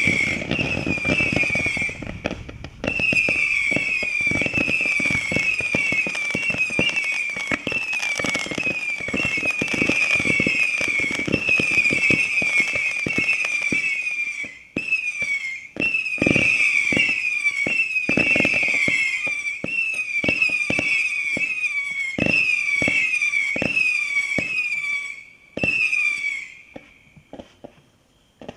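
Cosmic Fireworks '666 Satanic Beast' firework cake firing shot after shot, two or three a second. Each shot gives off a shrill whistle that dips slightly in pitch, over a dense run of sharp pops. The firing breaks off briefly about halfway and dies away almost to silence near the end.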